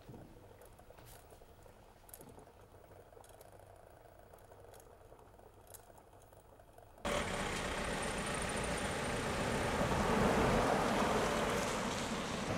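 Quiet room tone with a few faint ticks. About seven seconds in, it cuts sharply to much louder street noise: a car driving along a street, with a steady wash of engine and traffic sound.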